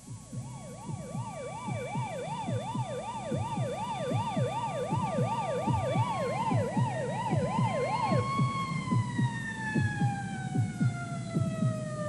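Emergency siren with a fast up-and-down yelp, about two sweeps a second, over a steady higher wail tone. The yelp stops about eight seconds in, and the remaining tone then slides steadily down in pitch. Low rhythmic thuds sound underneath.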